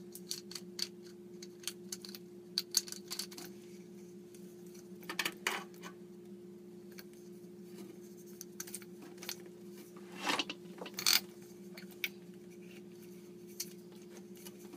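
Small clicks, taps and scrapes of hands working a seal ring and threaded fixing nut up a faucet stem under a sink, with a few louder knocks about five and ten seconds in. A steady low hum runs underneath.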